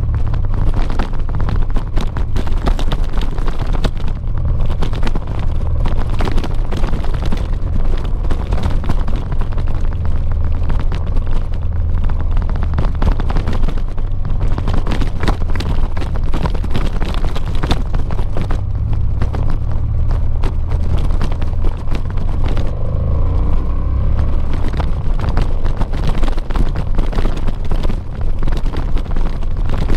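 Honda XL700V Transalp's V-twin engine running steadily while riding, a low rumble under heavy wind buffeting on the microphone.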